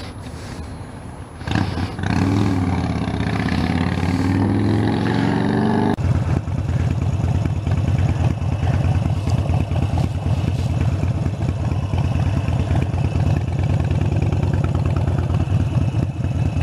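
Harley-Davidson Sportster 72's 1200cc V-twin engine running. It suddenly gets louder about a second and a half in and changes pitch as it revs for a few seconds, then settles into a steady low-speed rumble.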